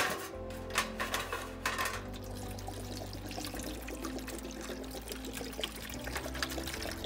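A stream of water pouring onto plastic model car parts in a stainless steel tray, after a few sharp clatters of parts being set into the tray in the first two seconds. Background music plays throughout.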